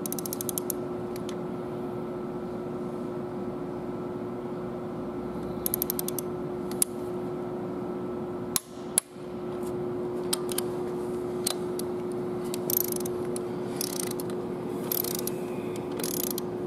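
Ratchet wrench clicking in short quick runs as the injector hold-down screw on a Cummins ISX head is torqued down, drawing the injector into its seat. A few scattered sharp metal clicks and knocks, over a steady hum.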